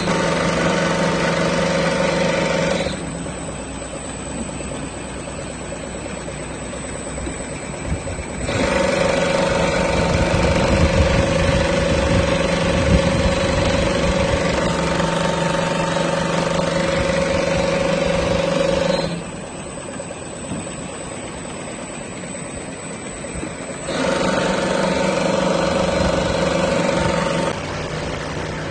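Mattress tape edge sewing machine with a heavy-duty 300U sewing head running with a steady hum. It runs in three stretches: from the start for about three seconds, again for about ten seconds, and once more for a few seconds near the end. A quieter machine hum continues in the pauses between runs.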